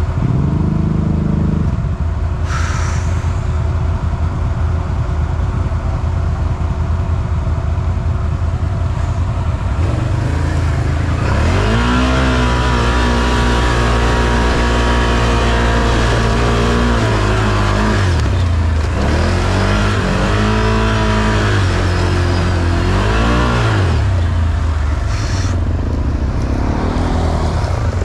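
Can-Am Outlander 1000 XMR ATV's V-twin engine running steadily at low revs. From about ten seconds in it revs up and down repeatedly, rising and falling in pitch several times.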